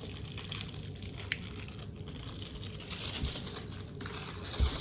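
Crinkly rustling of plastic fidget toys being handled, with one sharp click about a second in.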